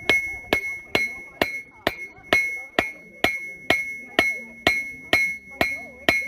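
Blacksmith's hammer striking on an anvil in a steady rhythm, about two blows a second, each blow leaving a clear metallic ring.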